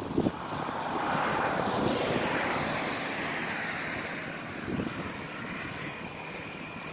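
A vehicle going past on the road. Its noise swells about a second in, then fades away over the next few seconds, sliding lower in pitch as it goes.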